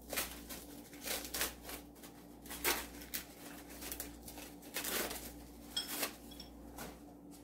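Packing wrap rustling and crinkling in irregular bursts as a small piece of china is unwrapped by hand, with a faint light clink or two about five and six seconds in.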